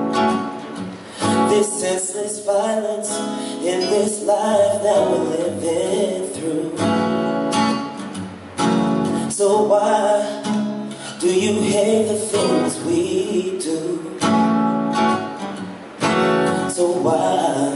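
Acoustic guitar strummed in chords, the accompaniment to a slow song, with a sung melody over it.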